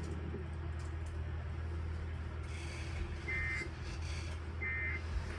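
Emergency Alert System end-of-message data bursts: short, buzzy two-pitch digital tones around 2 kHz, about 1.3 s apart. Two come in, starting about three seconds in, over a steady low hum, and mark the close of the severe thunderstorm warning broadcast.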